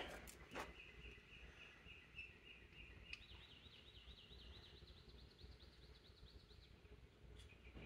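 Near silence with a faint high bird trill: a steady pulsed note for about the first three seconds, then a quicker run of rising and falling chirps. A few faint clicks come near the start.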